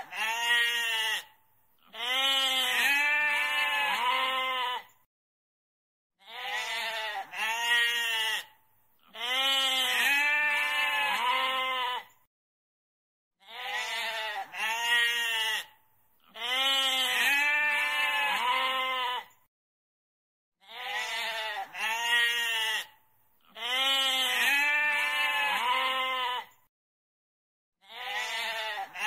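Goat bleating: a short bleat followed by a longer, quavering bleat, the same pair repeating about every seven seconds with brief silences between.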